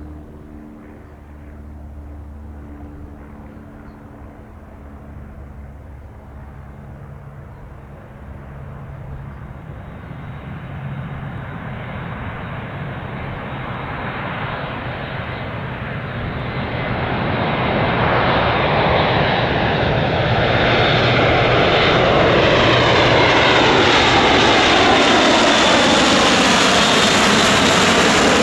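Airbus A400M's four turboprop engines on approach, a faint low drone at first that grows steadily louder until it is loud for the last third, with a shifting, sweeping whoosh as the aircraft closes in.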